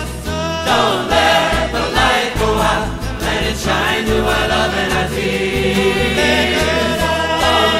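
Recorded song: several voices singing together over instrumental accompaniment.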